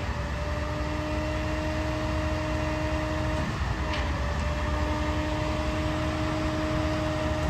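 Heavy diesel engines of a concrete boom pump truck and ready-mix trucks running steadily under load during a pour, with a steady hum that breaks briefly about three and a half seconds in and a faint knock just after.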